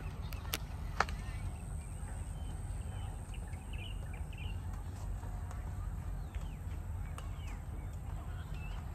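Outdoor ambience: a steady low rumble with faint, scattered high chirps and two light clicks about half a second and a second in.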